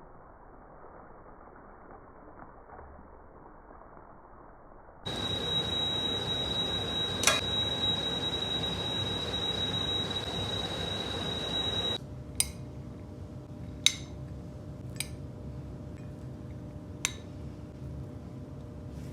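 Kitchen cooking sounds in cut-together segments: a faint hiss, then a louder steady hiss with a high whine and one sharp click, then four or five sharp clinks of utensils against cookware.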